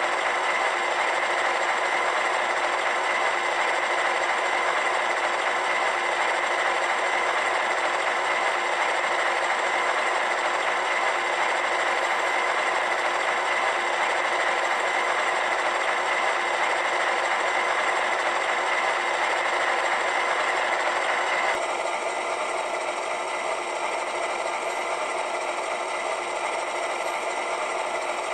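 An HO scale model locomotive's sound decoder playing a steady diesel engine idle through its small onboard speaker, giving a thin, buzzy drone. About three-quarters of the way through, the sound drops a little and changes character.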